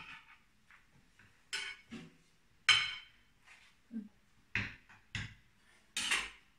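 Metal kitchen utensils clinking and scraping against a metal caramel mould and a ceramic plate, scraping leftover caramel onto the unmoulded quesillo. About eight short, separate knocks and scrapes, the loudest just under three seconds in.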